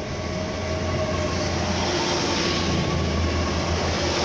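Class 800 IET bi-mode train pulling away under its underfloor diesel engines: a steady low engine drone with a few faint whining tones over rolling wheel and rail noise.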